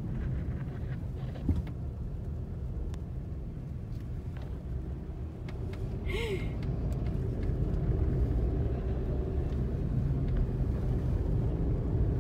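Steady low rumble of a moving car's engine and tyres, heard from inside the cabin. A click comes about a second and a half in, and a brief higher-pitched sound near the middle.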